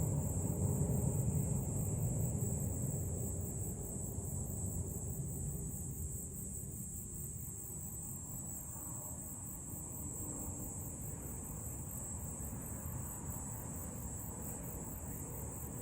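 Insects trilling steadily in a high-pitched chorus, over a low rumble that fades away during the first several seconds.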